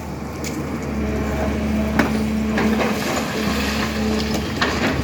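SANY excavator running steadily while digging, with a crunch and a few sharp knocks from the bucket, about two seconds in and again near the end.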